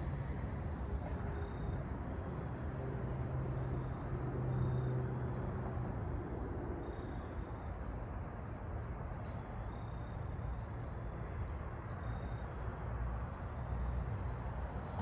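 Steady road traffic noise from cars, with one vehicle's hum swelling and passing a few seconds in.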